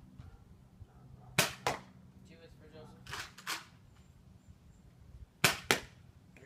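Nerf Rival toy blaster firing foam balls: three pairs of sharp snaps about two seconds apart, with the two in each pair about a quarter second apart.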